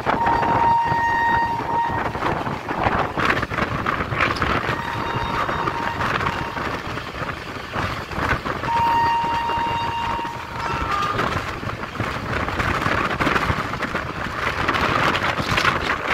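Train running on the rails with a steady rumble and clatter, and its horn sounding over it: a blast at the start, a fainter one a few seconds later, a longer blast about nine seconds in, then a short higher note.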